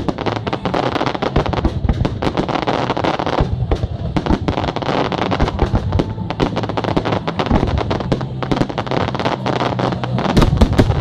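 Fireworks display: a dense, continuous run of crackling and banging aerial shells, with a louder boom near the end.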